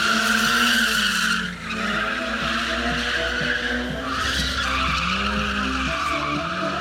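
Stunt car's engine revving hard while its tyres squeal in a sustained skid. The squeal breaks off briefly about a second and a half in and then picks up again, while the engine pitch dips and rises.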